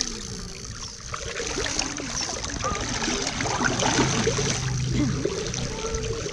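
Shallow river water trickling and sloshing around a person wading through it.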